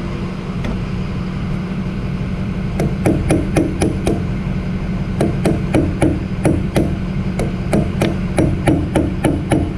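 Steel hammer striking a punch against the head of a hydraulic cylinder: metallic ringing blows, a quick run of about four some three seconds in, then after a short pause steady blows about three a second. The head is being driven in past its snap ring so the ring can be reached and removed.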